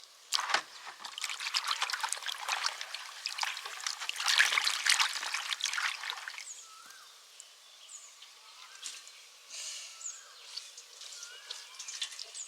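Liquid being poured into a container, splashing and trickling for about six seconds before it stops. Birds chirp faintly afterwards.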